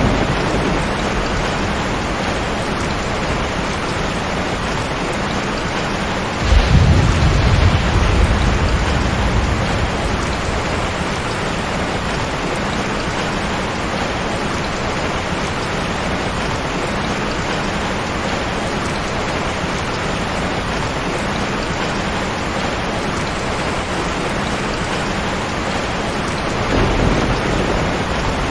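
Heavy rain falling steadily, with a roll of thunder breaking suddenly about six seconds in and fading over a few seconds, and a fainter rumble of thunder near the end.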